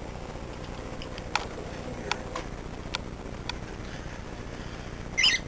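Steady scratchy background hiss with about five sharp clicks scattered through the middle, then a short high wavering bird call near the end.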